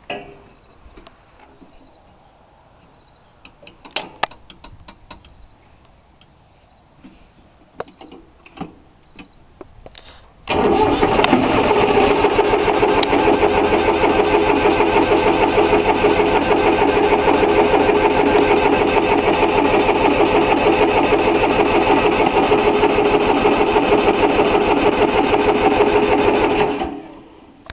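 Three-cylinder Yanmar diesel being cranked by its starter motor for about sixteen seconds without firing, then the cranking stops. The engine won't start because the fuel lines were not bled after the fuel system was opened. A few faint clicks come before the cranking.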